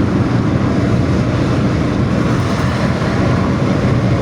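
Intercity bus engine running hard under load through a loud, growling 'ngorok' exhaust, steady throughout, mixed with road and wind noise.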